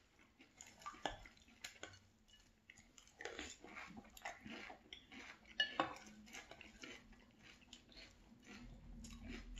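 Eating frosted corn flakes in milk: a plastic spoon scraping and clinking against a glass bowl while scooping, and crunchy chewing of the flakes.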